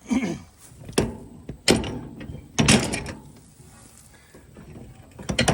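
Metal clanking and rattling of an old manure spreader's drive chain being worked onto its sprocket: a string of sharp knocks and clatters, with a short creak at the start.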